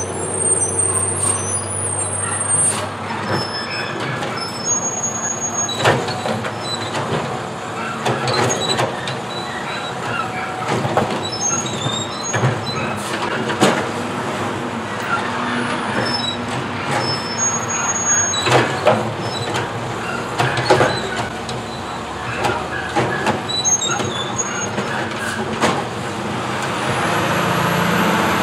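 Mack automated side-loader garbage truck running while its arm lifts and empties two plastic wheeled carts, with repeated sharp bangs and knocks as the carts are shaken into the hopper and set back down. The engine grows louder near the end as the truck pulls away.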